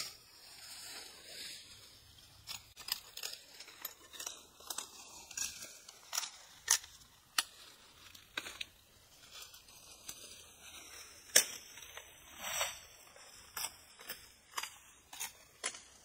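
Twigs and branches snapping and leaves rustling as leafy undergrowth is handled and broken by hand: a string of irregular sharp cracks over a light rustle, the loudest crack about two-thirds of the way through.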